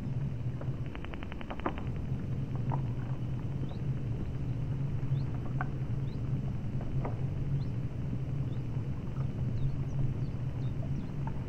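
Steady low hum of a ship's engine running. A quick rattle of clicks comes about a second in, and faint short high chirps recur throughout.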